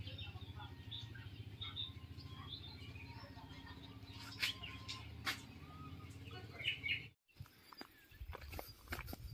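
Birds chirping over a steady low hum. About seven seconds in, the sound cuts out briefly and gives way to irregular clicks and knocks.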